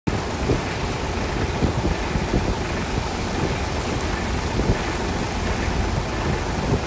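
Rain pouring steadily on wet pavement, as a constant hiss with a low, uneven rumble underneath.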